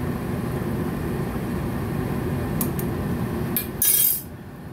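Steady low rushing noise, with a few light clicks of a metal spoon on a cooking pot. Near the end comes a loud clatter as the spoon is set down on the tiled counter.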